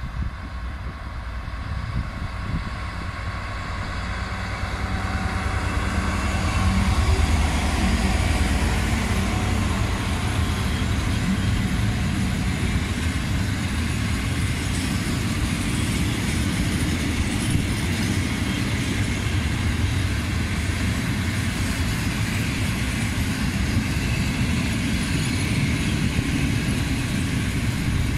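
Class 66 diesel-electric locomotive with its EMD two-stroke V12 engine drones louder as it approaches and passes, peaking about seven seconds in. After that, a long rake of empty cement hopper wagons rolls past with steady wheel-on-rail noise.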